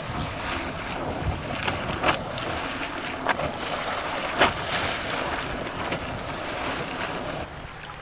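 Boiling geothermal pool churning, a steady rushing hiss of water and steam broken by sharp, irregular pops and spatters, with wind buffeting the microphone.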